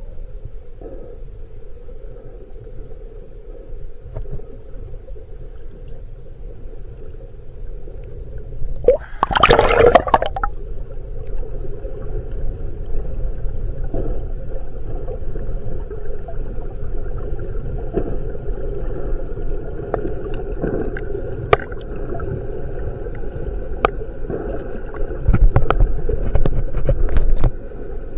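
Muffled underwater sound picked up by a submerged camera: a steady low wash of water with a faint hum, a short loud gurgling burst about nine seconds in, and a louder low rumbling near the end.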